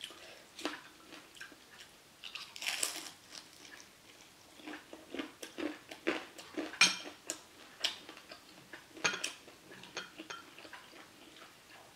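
Mouth sounds of chewing crisp fried wonton, with irregular crunches and wet crackles, and now and then a sharp click of chopsticks against a bowl.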